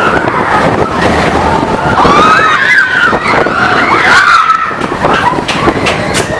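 Big Thunder Mountain Railroad mine-train roller coaster running fast on its track, with riders screaming and whooping over it, the screams thickest in the middle.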